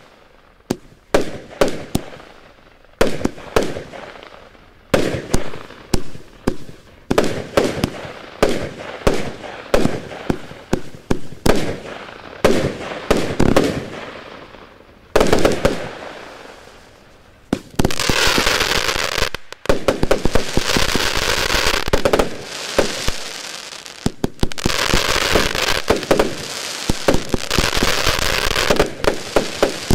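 100-shot, 30 mm compound firework cake (Broekhoff Thundering Pirate 'Meteor Rain') firing shot after shot, each a sharp report with a short fading tail. A little past halfway it turns into a dense, rapid run of reports and crackling that keeps going almost to the end.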